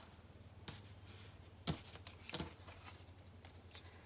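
Light clicks and taps of fabric strap connectors with metal rectangle rings being handled and set down on a cutting mat, the sharpest a little before halfway and another soon after. A faint low hum runs underneath.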